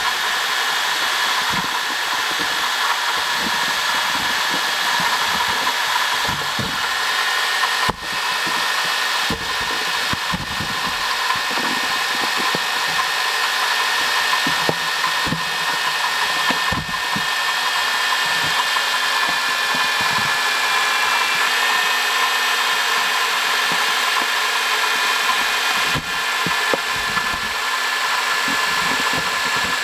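Honda Odyssey engine running with a worn water pump making a steady high-pitched whine. The noise is the sign of a failing water pump.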